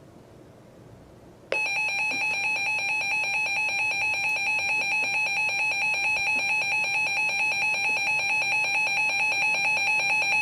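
Emergency Alert System two-tone attention signal: a loud, steady, piercing dual tone starts abruptly about a second and a half in and holds without change. It is the alarm that opens a new emergency alert before the voice message.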